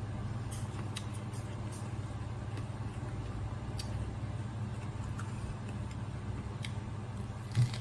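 A steady low hum, with a few faint clicks and a short thump near the end.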